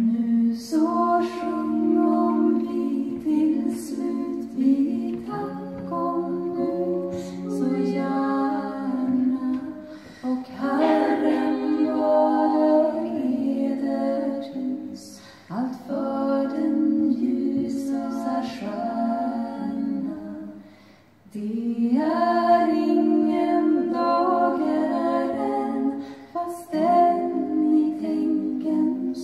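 Female vocal quartet singing a traditional folk song a cappella in close harmony through microphones. Several voices hold sustained notes in long phrases, with short breaths between them and a longer pause about two-thirds of the way through.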